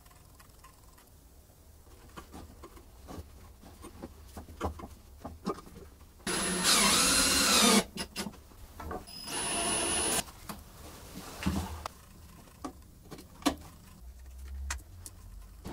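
Handling noise from a homemade angle-grinder stand, a welded metal frame with a chipboard top, as it is turned over and moved on a wooden workbench: scattered knocks and clicks, with two loud scraping stretches of a second or so each, about six and nine seconds in.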